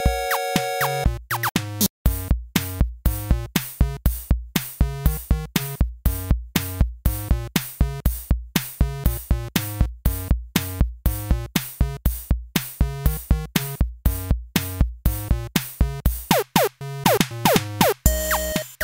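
Background music with a steady, fast beat.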